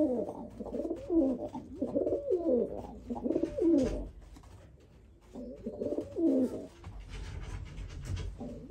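Domestic fancy pigeons cooing: a run of low coos that fall in pitch, a short pause about four seconds in, then another run of coos.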